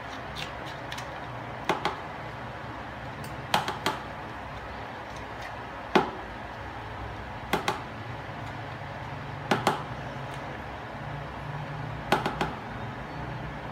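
Wooden stirring paddle knocking against a plastic bucket as thick pukis batter is stirred: short sharp knocks in pairs or threes about every two seconds, over a low steady hum.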